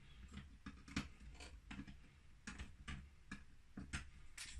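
Faint, irregular light clicks and taps of small tools and parts being handled on a soldering bench, about one or two a second.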